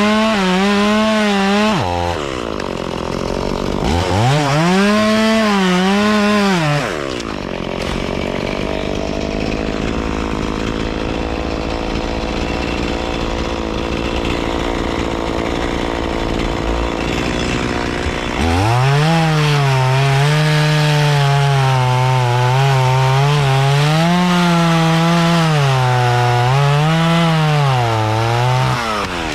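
Gas chainsaw cutting walnut logs. It runs at high speed in two short bursts near the start, then at a lower, steadier speed, then through about ten seconds of cutting in which the engine pitch dips and recovers under load.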